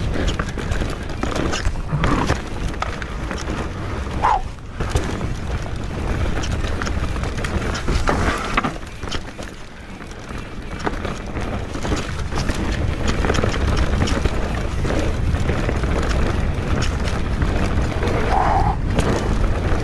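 Mountain bike riding fast down a dirt forest trail: a steady low rumble from the tyres and the rushing air, with constant clattering and knocking as the bike rattles over roots and rocks. The ride goes briefly quieter about halfway through.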